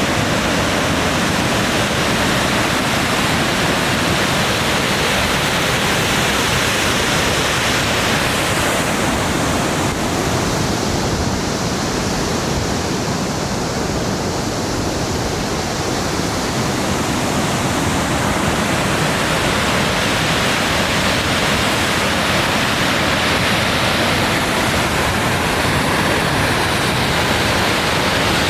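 Tumalo Falls, a large waterfall, rushing in a loud, steady roar; its hiss turns somewhat duller and softer for several seconds midway, then comes back.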